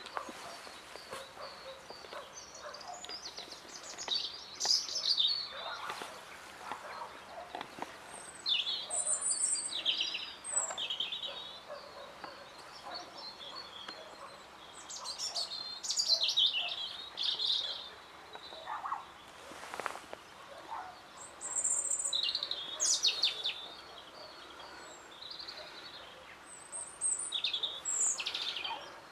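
European robin singing: a run of short, high, varied warbling phrases, each a second or two long, separated by pauses of a few seconds.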